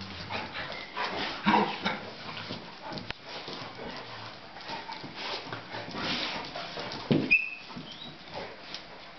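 Several golden retrievers, one a puppy, playing rough together: irregular scuffling and dog noises, with a loud thump and then a brief high whine about seven seconds in.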